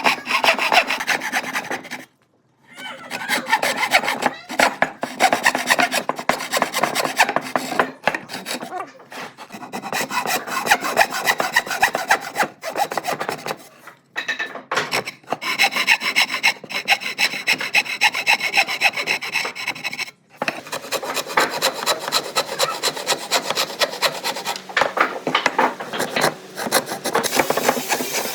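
A tool working solid wood in rapid rubbing, rasping strokes, pausing briefly a few times.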